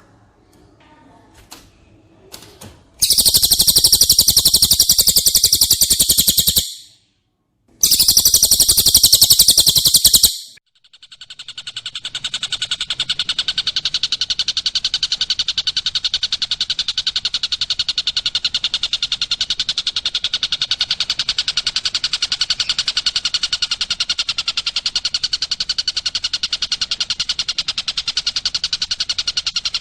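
Masteran recording of cililin and tengkek buto bird calls. A couple of faint clicks come first. Then there are two loud bursts of dense, very high-pitched rapid song, about 3 and 8 seconds in. From about 12 seconds a continuous, evenly pulsed fast trill begins.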